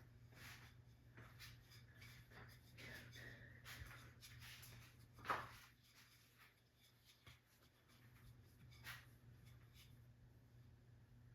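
Near silence: a faint steady low hum with scattered soft rustles and clicks, and one brief, slightly louder sound about five seconds in.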